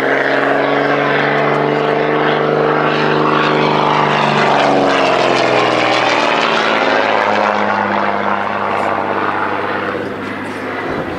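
Propeller and Lycoming flat-six piston engine of a SAAB Safir 91B trainer droning in flight. The pitch drops about five to six seconds in as the plane passes and moves away.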